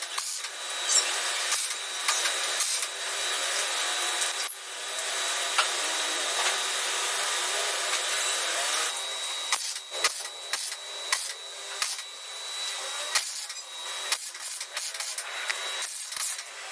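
A power tool runs steadily with a thin high whine for about nine seconds, then stops, giving way to irregular clicks, knocks and scrapes of hand work on metal parts.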